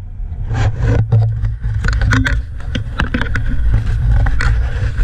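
Wind rushing over the microphone of a camera on a moving motor scooter, a steady low rumble, with scattered sharp knocks and scrapes as the camera brushes against the rider's jacket and bag.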